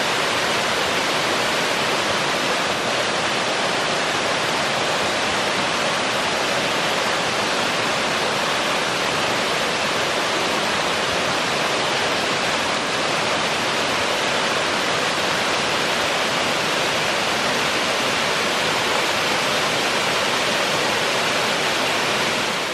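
Waterfall rushing: a steady, even hiss of falling water at close range, unchanging in level throughout.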